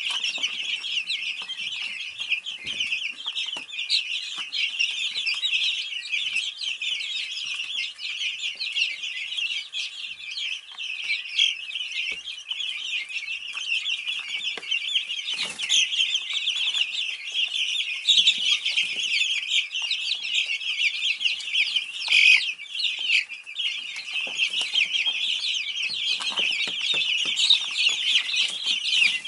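A brooder full of Easter Egger chicks peeping without a break, many high chirps overlapping at once. Now and then there is a knock or rustle among them.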